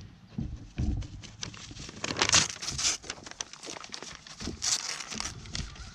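A goat tugging at and tearing a paper sign: the paper rustles and crinkles in irregular scrapes and clicks, with two louder rustling bursts, a little past two seconds and again near five seconds.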